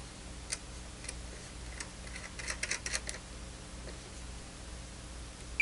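A few faint, small clicks and ticks of an SMA open calibration standard being handled and threaded onto the vector network analyzer's port, bunched together around two to three seconds in, for the open step of calibration. A short electronic beep from the analyzer sounds right at the end.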